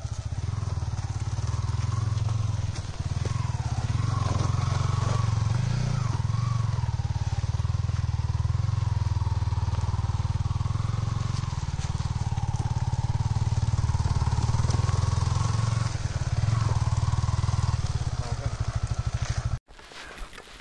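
Yamaha motorcycle's single-cylinder engine running at low revs as the bike is ridden slowly over a rough dirt trail, steady throughout. It stops abruptly about a second before the end.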